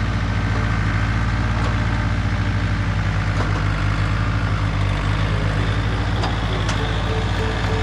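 Heavy machine engine running steadily at a constant speed with a low pulsing rumble, and a few faint clicks over it.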